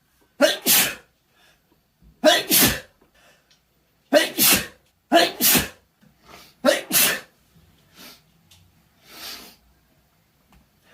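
A man sneezing five times in quick succession, about one sneeze every second and a half, each a loud two-part burst. The sneezes are brought on by chhinkni sneezing powder.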